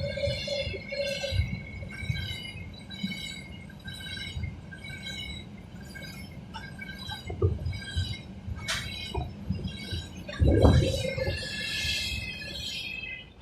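A passing freight train, its wagons rolling by with a high, pulsing squeal about twice a second over a low rumble that fades. A loud low knock comes about ten seconds in.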